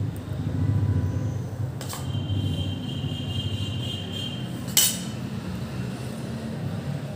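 A steel spoon clinks against metal while scooping potato-and-pea filling into a dough cup: a light tap about two seconds in with a brief ringing tone after it, then a sharper clink near five seconds, the loudest sound. A low steady hum runs underneath.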